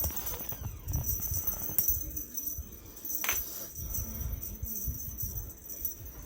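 A cat batting at a feather cat toy: scattered low thumps and a few sharp clicks, with light jingly rattling.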